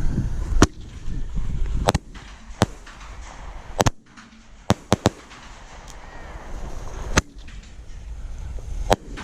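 Fireworks going off: a string of sharp, irregularly spaced bangs, about nine over the nine seconds, some in quick pairs, over a low rumble that is loudest in the first two seconds.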